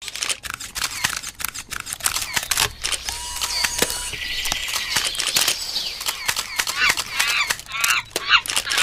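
Animated logo intro sound effects: a fast run of sharp clicks and snaps, with a brief steady tone around the middle and a run of quick, high chirping calls near the end.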